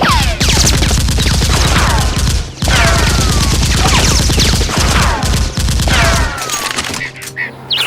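Rapid automatic gunfire, several long bursts of quick shots with short gaps between them, stopping about six seconds in.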